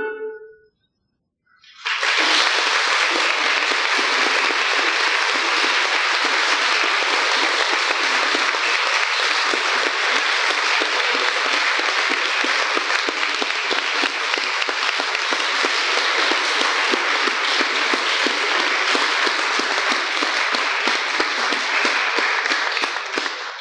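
The final notes of a song for voice and piano end, and after about a second of silence an audience applauds steadily for about twenty seconds, dying away at the end.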